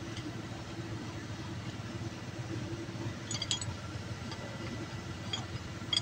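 A few light metallic clinks of a spin bar and tools against the diesel engine's cylinder head as an injector is being worked out, a cluster about halfway through and another near the end, over a steady low hum.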